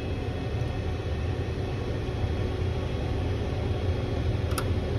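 Steady low mechanical rumble with a faint steady hum, and one short click about four and a half seconds in.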